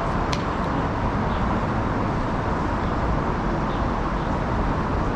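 Steady outdoor background noise with a heavy low rumble and a faint click about a third of a second in.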